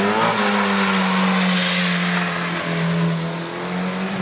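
Car engine revved hard: the revs climb quickly and then hold steady at a high, constant pitch for about four seconds over a loud hiss, dropping away at the very end.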